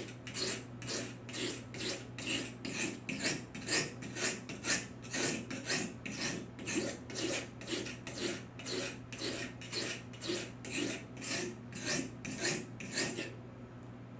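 Stainless steel knife blade scraped back and forth on a coarse sharpening stone, about two rhythmic rasping strokes a second, stopping shortly before the end. This is rough sharpening at a raised angle, grinding to raise a burr on the edge.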